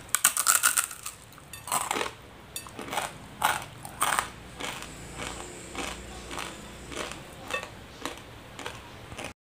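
A loud crackling bite into a block of dry, uncooked instant noodles, then chewing crunches about every half second that grow softer.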